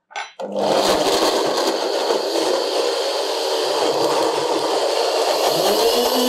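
Countertop blender starting up about half a second in and then running steadily, puréeing chunks of avocado with garlic, onion and olive oil into a smooth green pesto.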